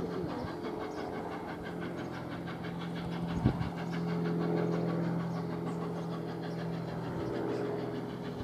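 Steam locomotive approaching at speed, its exhaust beats coming quick and even over a steady hum, with one sharp click about three and a half seconds in.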